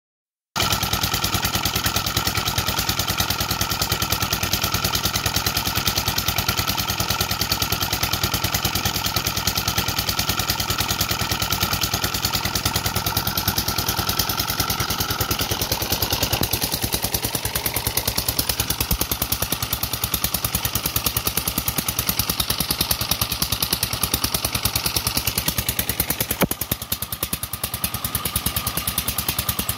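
Small stationary diesel engine running steadily at constant speed with a fast, even beat of firing pulses, driving a tubewell water pump.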